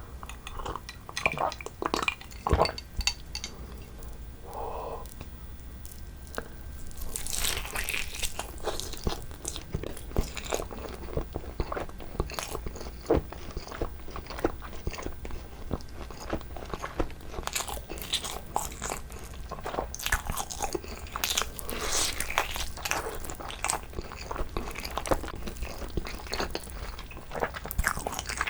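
Close-miked eating of braised pig's trotter (jokbal) by hand: a few handling clicks, then from about seven seconds in a steady run of biting and wet, sticky chewing with crisp mouth clicks.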